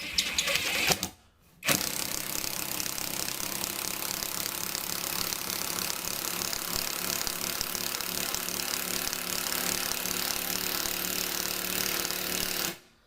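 Cordless 1/2-inch-drive impact wrench hammering: a burst of about a second, then a steady run of rapid impacts lasting about eleven seconds that cuts off near the end.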